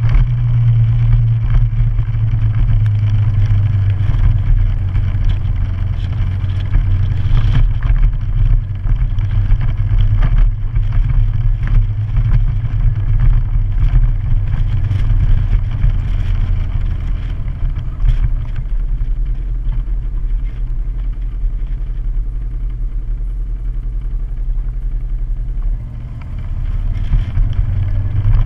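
Motorcycle engine running steadily as the bike is ridden. The engine sound eases off about two-thirds of the way through, dips briefly, then picks up again near the end.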